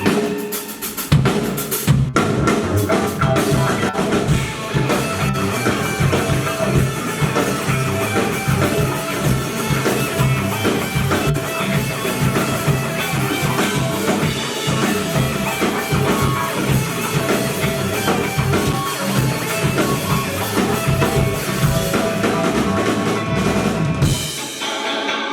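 Live rock band playing, with a full drum kit (kick, snare and rimshots) driving the music. Near the end the drums stop and the music thins out.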